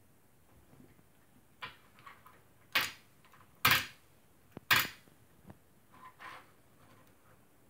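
Majorette Jeep Cherokee die-cast toy car handled on a wooden tabletop: a few sharp clicks and short clatters of the metal toy and its plastic wheels against the wood, three of them loud in the middle.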